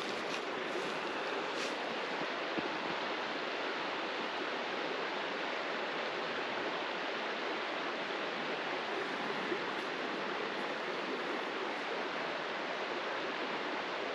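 Steady, even rush of running creek water, with no change in level, and a few faint clicks in the first couple of seconds.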